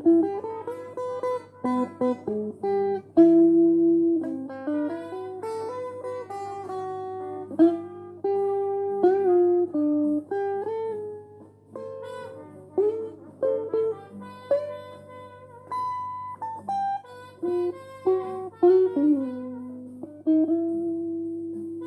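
Electric guitar played solo: a single-note melody of picked and held notes, several of them bent up in pitch, over a steady low hum.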